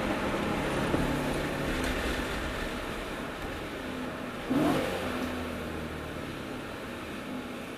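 BMW E92 M3's 4.0-litre V8 through its M Performance Inconel exhaust, heard from outside the car while driving at part throttle, the note easing off gradually. About halfway through there is a short louder burst that rises in pitch, like a quick throttle blip.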